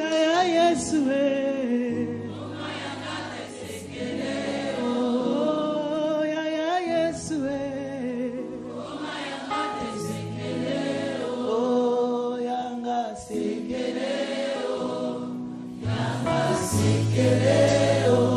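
Gospel worship music: a choir singing over sustained chords.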